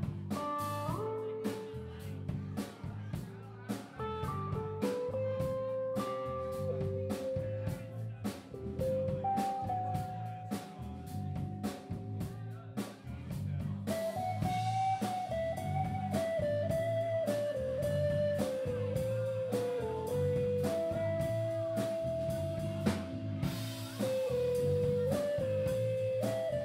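Live band playing an instrumental blues-rock number on electric guitars, bass and drum kit, with a lead line of long held notes over the rhythm section. The playing gets louder about halfway through.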